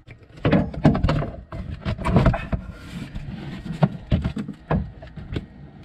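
Irregular clicks, knocks and rustles of a camera being handled and moved about under a car.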